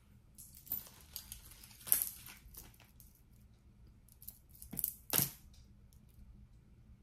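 Close handling noise of costume jewelry and its plastic packaging: irregular rustles and light clinks, several in the first three seconds and two more a little before the five-second mark.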